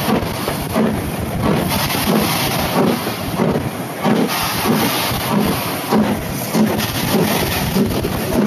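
Steam locomotive under way, its exhaust beats coming evenly at about one and a half a second, heard from an open carriage window with wind buffeting the microphone.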